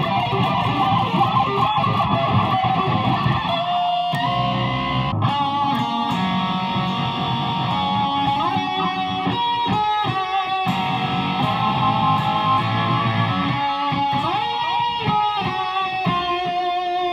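BC Rich Warlock Revenge Series electric guitar played solo: a melody of held notes, with slides between some of them.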